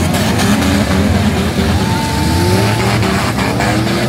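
Several demolition derby cars' engines revving hard at once, their pitch rising and falling as they accelerate and ram each other, with a held whine for about a second midway and a few sharp knocks near the end.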